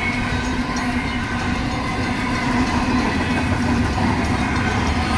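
Double-stack intermodal train cars rolling past at a grade crossing, a steady rumble of wheels on rail, while the crossing bells keep ringing: an electronic bell and a worn Safetran mechanical bell that sounds rough.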